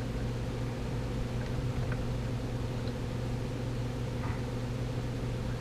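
Steady low hum from a Fender Vibro Champ tube amplifier running on the test bench with a test signal fed in. It holds one low pitch with a few overtones above it and does not change.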